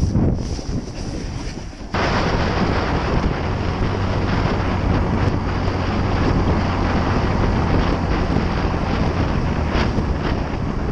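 Gusty wind buffeting the microphone. About two seconds in it switches abruptly to a steady, loud rushing noise with a faint low hum underneath.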